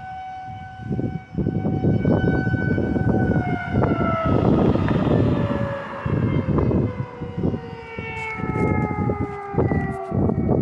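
Outdoor warning siren sounding a test: a loud, steady wail that slowly falls in pitch from about four seconds in, with a higher tone coming in near the end.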